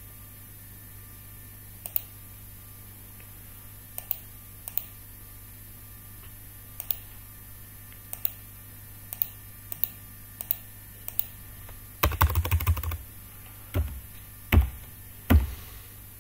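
Typing on a computer keyboard: scattered single keystrokes, then a quick run of keystrokes about twelve seconds in, followed by a few louder separate key strikes.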